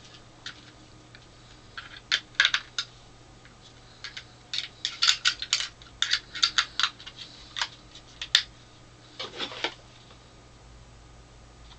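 Sharp plastic clicks and clatters of small parts of a portable LCD TV being handled and fitted, in irregular bursts over several seconds.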